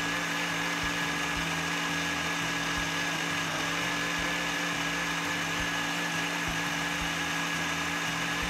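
Black+Decker countertop blender running steadily at one speed, its motor whirring as it purees cooked butternut squash and soaked cashews into a thin, runny sauce in the glass jar.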